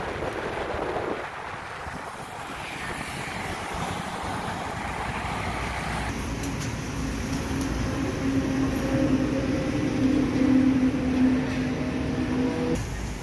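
Motorbike riding along a road with engine and road noise. It cuts about halfway through to a steady two-tone hum from a petrol-station fuel dispenser pumping petrol into the scooter's tank, which stops abruptly near the end.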